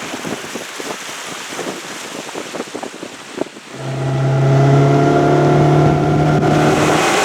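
Boat's outboard motor running under way, with wind and water noise. A little under four seconds in, a loud, steady engine drone comes up and holds.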